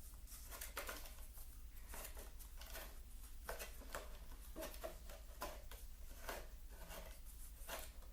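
Foam darts being pushed into a plastic Nerf blaster magazine by hand: a run of irregular light plastic clicks and rustles, several a second, over a low steady hum.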